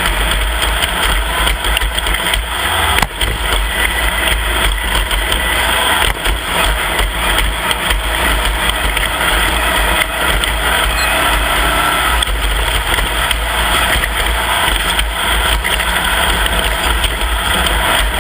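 Off-road race vehicle's engine running steadily and loudly, over a heavy low rumble, with no let-up.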